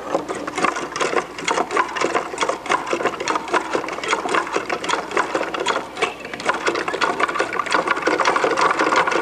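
Wooden mechanism of a hand-cranked automated puppet scene, clattering quickly and unevenly as it works the carved diners' arms.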